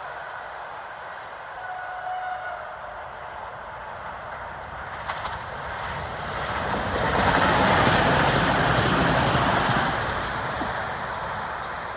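Stadler FLIRT (EPR) electric multiple unit passing close by at speed. Its wheels on the rails make a rushing noise that builds over several seconds, peaks about seven to ten seconds in, and then fades as the train moves away.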